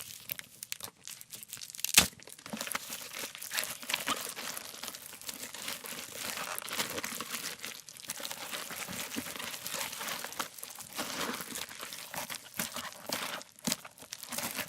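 A pumpkin being torn and crushed by hand as gore foley: continuous close crunching, crackling and tearing of its flesh and rind, with one sharp crack about two seconds in.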